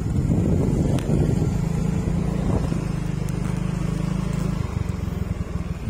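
Small motor scooter engine running at riding speed with a steady low hum; the engine note drops lower near the end.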